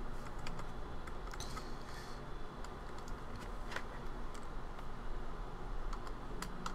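Computer keyboard typing and mouse clicks: a few scattered, uneven keystrokes over a low steady background hum.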